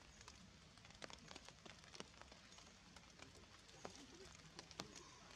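Near silence of a wet forest floor, with faint, sharp ticks and clicks at irregular intervals.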